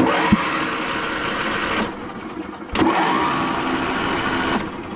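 Craftsman YT4000 riding mower's engine cranking on its electric starter in two long tries of about two seconds each, with a click before the second, without catching: the engine cranks but won't start.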